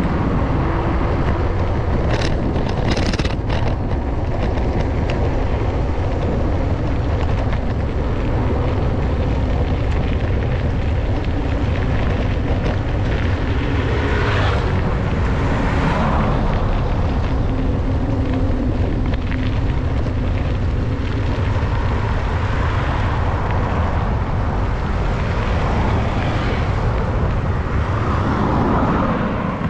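Steady low rumble of wind on the microphone with road noise while riding along a highway shoulder. Vehicles pass on the road: a scooter and a bus go by about halfway through, and another vehicle passes near the end.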